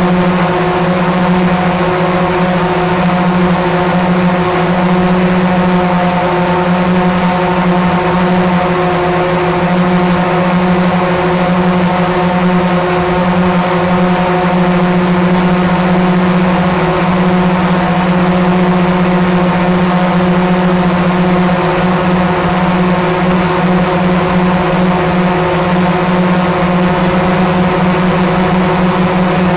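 Quadcopter drone's motors and propellers running in flight, heard close up from a camera mounted on the drone: a loud, steady hum with one strong low pitch and several fainter higher tones above it.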